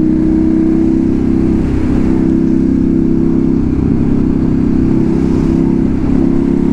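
Motorcycle engine and exhaust running at a steady cruise, recorded from the rider's camera, with low wind rumble; the engine note shifts slightly about two seconds in and again near six seconds.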